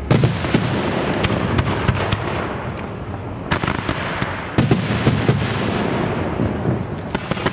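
Aerial fireworks shells bursting in a rapid barrage of sharp bangs over continuous crackling. A heavy volley hits at the very start, and another comes about four and a half seconds in.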